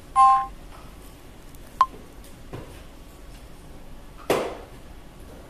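A short, loud two-tone electronic beep, then a sharp ringing clink about two seconds in and a knock near the end as ventilator parts are handled.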